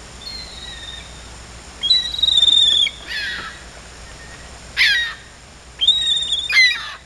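Gulls calling, a string of cries with several long held notes, the loudest about two seconds in: a gull scolding the boat for sitting too close.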